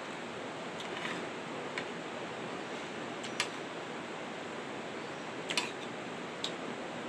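Steady wash of surf and wind noise, with a few light clicks and taps scattered through it.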